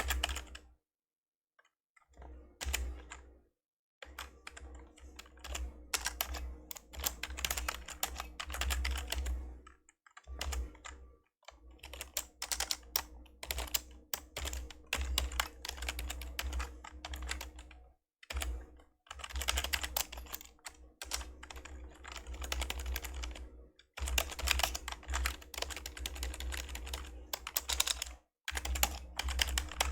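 Typing on an old membrane computer keyboard: fast runs of key presses in bursts, broken by short pauses.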